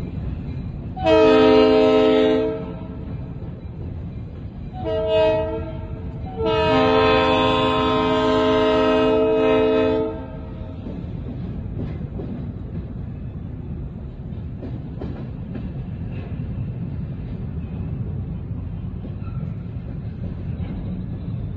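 EMD GP7 diesel switcher locomotive sounding its air horn three times, long, short, long, with the last blast the longest. The low rumble of its idling engine runs underneath and carries on after the horn stops.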